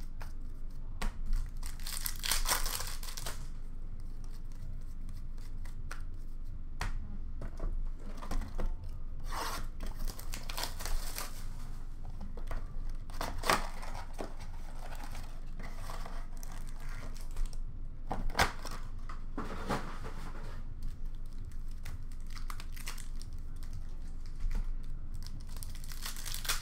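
Hockey card pack wrappers being torn open and crinkled while cards are handled, in several irregular bursts of tearing and rustling with small clicks between them.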